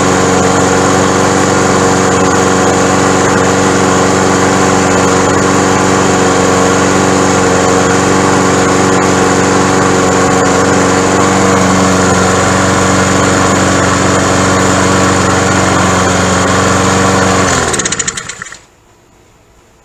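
Honda engine on a Cub Cadet push mower running steadily at speed on a newly fitted carburetor, running well. Near the end it is shut off, and its pitch falls as it runs down to a stop within about a second.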